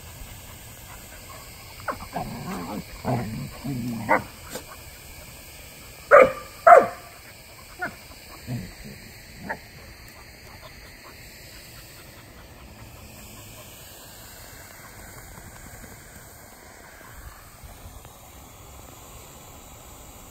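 A husky puppy and a golden Labrador playing rough, with a couple of seconds of grumbling play noises, then two loud barks about half a second apart and a few quieter yips.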